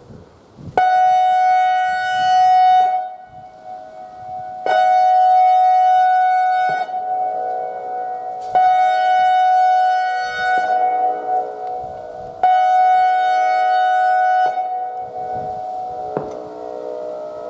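ACA Alertronic AR-1600 electronic outdoor warning siren sounding a two-tone signal. It alternates every two seconds or so between a loud, high steady tone and a quieter, lower one.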